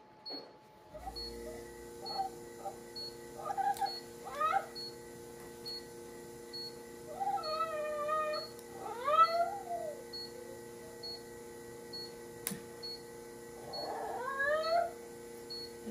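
A dog whining: several drawn-out cries, rising and wavering in pitch, with short gaps between them.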